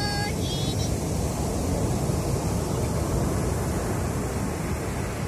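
High surf breaking on the beach: a steady, deep rush of heavy waves.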